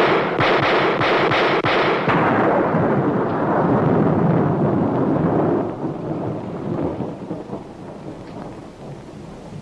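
Revolver shots, the first sharp and loud right at the start with a few more in the next two seconds, set in a dense rumbling din that fades away over about six seconds.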